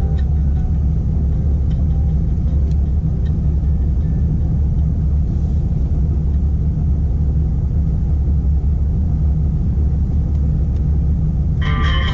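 Off-road vehicle engine running with a steady low rumble. Near the end a brief higher-pitched tone rises over it for about a second and a half.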